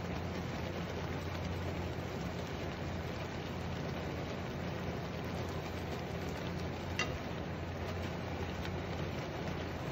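Water simmering and hissing in a frying pan as instant yakisoba noodles cook in it and are stirred with wooden chopsticks, with a steady low hum underneath. One sharp click about seven seconds in.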